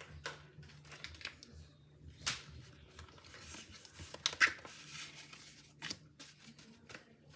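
Paper and crafting supplies handled on a tabletop: scattered rustles, taps and clicks, the loudest a little past four seconds in.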